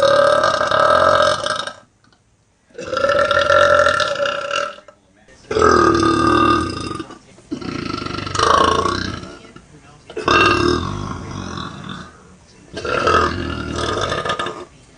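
A woman's long, deep belches: about six in a row, each lasting around two seconds, with short pauses between them.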